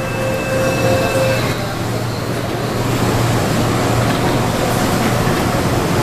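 Keihan 7000 series electric train standing at a station platform: a steady low hum over a constant background noise, with a held tone that stops about a second and a half in.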